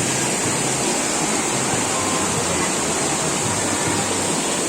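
Waterfall water falling and rushing, a steady unbroken noise.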